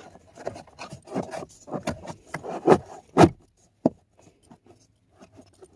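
Charcoal cabin air filter being pushed up into its curved plastic slot: rubbing and scraping against the housing with several knocks, the loudest about three seconds in, then only a few faint clicks.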